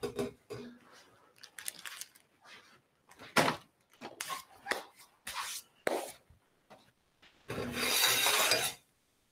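Scattered knocks, clicks and rubs of things being handled, then a louder rubbing sound about a second long near the end as a plate on a stainless steel table is wiped.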